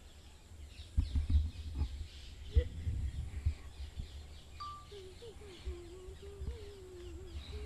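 Small birds chirping rapidly and repeatedly in the background, with a few low thumps of handling or rubbing on the microphone about one to three and a half seconds in.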